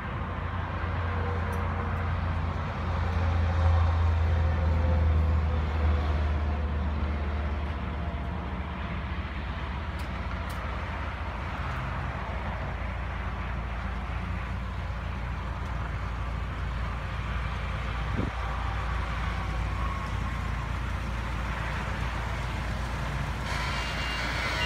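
Engine of a tram vehicle running steadily as it is driven, with a low hum that swells for a few seconds near the start.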